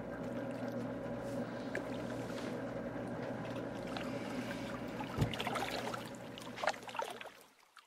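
Turtle aquarium's filter humming steadily with water trickling, and small splashes and knocks from pet turtles paddling at the surface in the second half. The sound falls away suddenly near the end.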